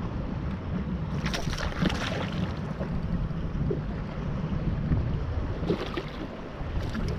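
Wind buffeting the microphone on a bass boat, a steady low rumble, with short bursts of water splashing against the boat about a second in and again near the end.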